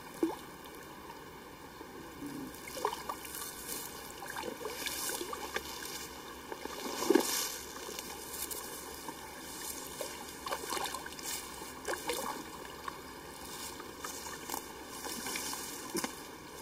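Hooked brown trout splashing and thrashing at the water's surface as it is played in to the bank, in irregular splashes, the loudest about seven seconds in.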